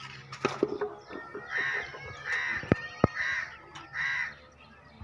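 A crow cawing four times in a steady series of harsh calls. Two sharp knocks come about midway, and a fainter one comes near the start.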